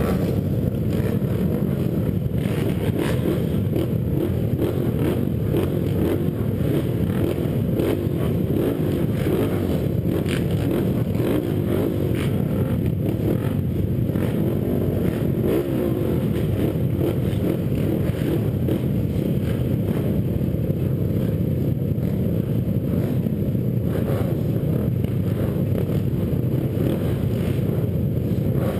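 Several ATV engines idling together in a starting line, the pitch wavering up and down a little as throttles are blipped.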